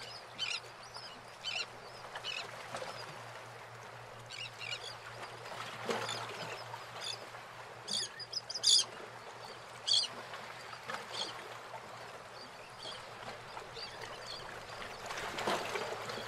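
Scattered short bird calls, brief chirps coming at irregular intervals, over a faint steady low hum.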